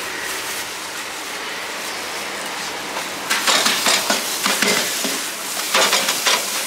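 Meat frying on a hot griddle pan with a steady sizzle. From about three seconds in, metal spatulas scrape and clatter against the pan in quick irregular strokes as the meat is stirred.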